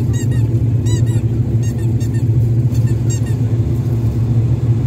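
Airliner engines heard from inside the passenger cabin on the ground: a loud, steady low drone, with brief high squeaks now and then.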